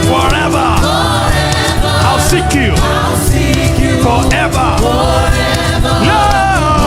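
Live gospel worship music: a choir of voices singing, carried over steady sustained instrumental backing.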